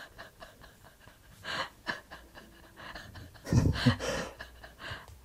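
A man's audible breaths and breathy huffs, the loudest a little past halfway through. Under them are small ticks and rustles of cloth as a needle and thread are pulled through a seam by hand.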